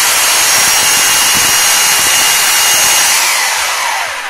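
Corded rotary hammer drill with a flat chisel bit, running unloaded at speed: a steady high whine over loud noise. About three seconds in the whine falls away as the motor winds down.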